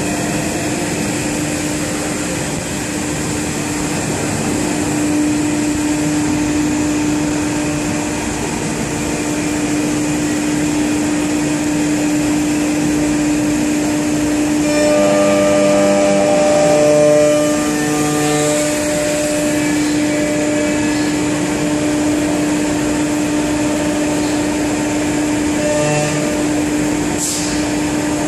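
A Motion Master 5-axis CNC router running, its head moving over the workpiece: a steady hum at one pitch with a constant hiss. About halfway through, a run of short tones steps up and down in pitch for a few seconds.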